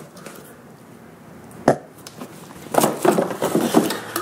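Tabletop handling noises: one sharp knock about one and a half seconds in, then a second and a half of clatter and rustling as a kitchen knife in its plastic sleeve is picked up out of the packaging.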